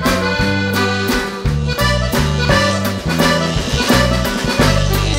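Upbeat music with a regular beat and a bass line stepping from note to note.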